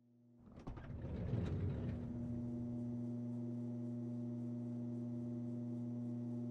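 Vulcan motorized safe lift raising a floor safe: a rough mechanical rumble builds and fades over the first couple of seconds, then settles into a steady low electric hum.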